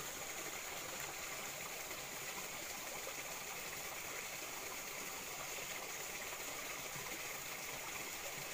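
Small shallow stream trickling steadily.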